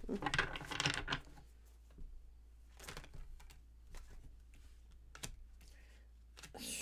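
Tarot cards handled in the hands with a brief rustle of shuffling, then single cards laid down on a wooden table: about half a dozen light, separate taps a second or so apart.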